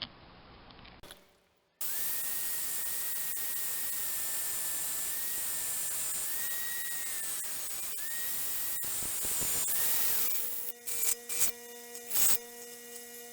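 A cut-off wheel tool cutting a metal reinforcement plate: a loud hissing grind with a high steady whine, briefly dipping a few times, that winds down about ten seconds in. After that comes a steady electric hum with short, irregular bursts of noise.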